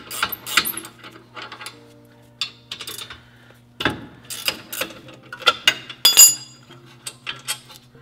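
Metal clinks and knocks of a wrench and a Lexus IS300 rear brake caliper being handled as the caliper is unbolted and lifted off the rotor. The clinks are irregular and come thickest about halfway through.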